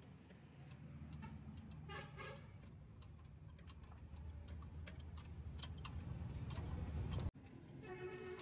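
Light metallic clicks and taps of hand tools working on a Fiat 480 tractor's clutch linkage and bellhousing, over a low steady rumble that grows louder toward the end and cuts off suddenly.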